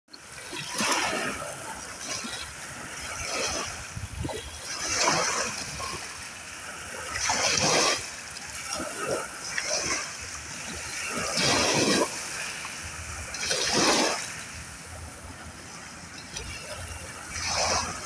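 Small sea waves lapping and splashing close by, one splash every two to three seconds over a steady wash of water.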